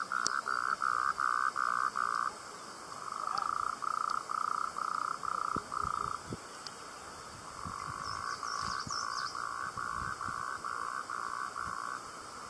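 A frog calling in three series of evenly spaced croaks, about three a second, with short pauses between the series.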